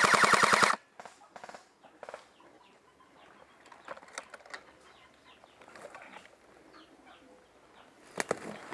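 Airsoft electric rifle firing a fast full-auto burst, about fifteen shots a second, that cuts off just under a second in; faint clicks and rustling follow, with a few sharp clicks near the end.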